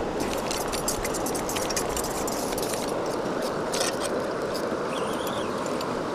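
Steady rush of river water, with a run of light metallic clicks over the first four seconds as the fly reel is handled.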